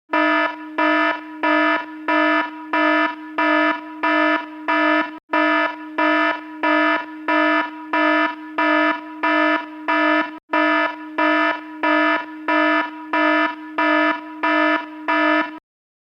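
Fire alarm horn sounding in evenly repeated buzzing pulses, about two a second, on one low tone. It cuts out for an instant twice and then stops abruptly shortly before the end.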